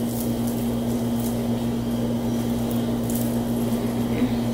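Steady low electrical hum over a constant background noise, with a few faint brief rustles.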